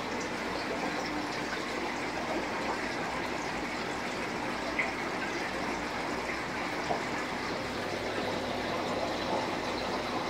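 Steady rushing of circulating aquarium water, with a couple of faint ticks about halfway through.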